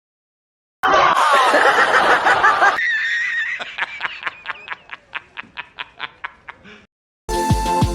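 Comedy sound effect of snickering laughter: about two seconds of wavering, high-pitched giggling, then a run of quick pulses, about four a second, that fade away. Electronic music with a steady beat starts near the end.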